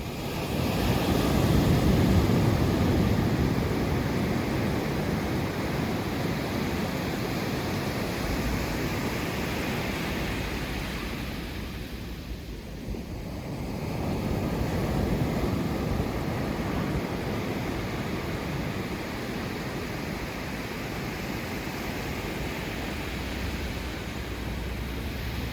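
Sea waves breaking and washing up the shore, a steady surf noise that swells loudest about two seconds in and again around fifteen seconds in.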